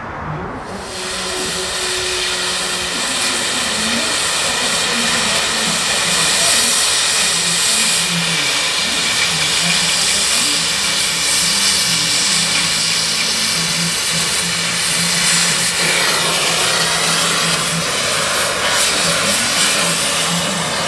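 Oxy-fuel cutting torch hissing steadily as it cuts through a steel frame, starting about a second in; the hiss spreads lower and grows fuller about sixteen seconds in.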